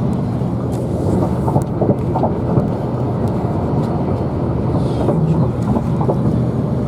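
Steady rumble of road and engine noise from a moving vehicle, with a few faint ticks.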